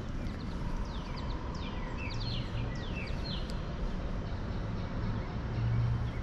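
A bird singing a run of quick, high, downward-sliding notes over a steady low rumble.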